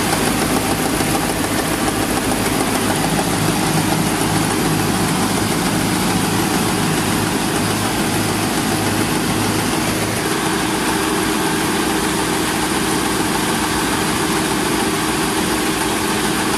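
Rice mill (palay huller) running, a loud steady machine noise with a low hum; the low hum thins about ten seconds in while the machine keeps running.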